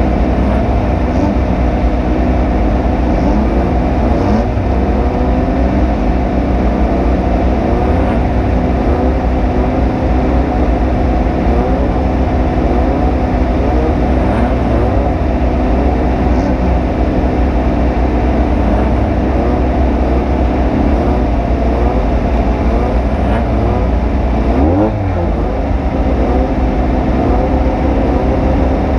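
Off-road race vehicle's engine running hard under load, its pitch rising and falling again and again as the throttle is worked over rough ground. About 25 seconds in the level dips briefly and the pitch drops before climbing again.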